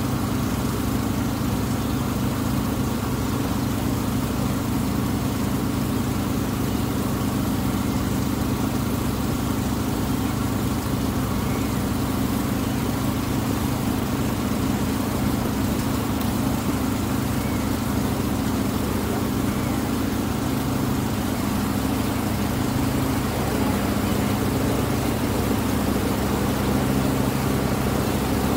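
Engine of the wooden water bus Tuula II running steadily: an even, unchanging low drone with a steady hum.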